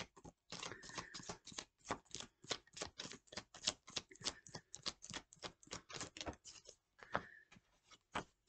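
Tarot cards being shuffled by hand: a quick, irregular run of soft card clicks and flicks, several a second, thinning out near the end.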